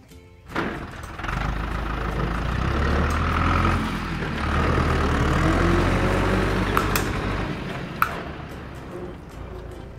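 Tractor engine sound effect running, starting about a second in and swelling and easing in level, laid over a toy tractor pushed by hand. Two sharp clicks near the end.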